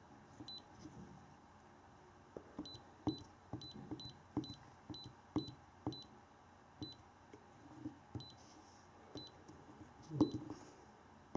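iCarsoft i907 handheld scan tool's keypad beeping as its buttons are pressed to scroll and select menu items: about fifteen short, high beeps at irregular intervals, several in quick runs, each with a soft click of the button.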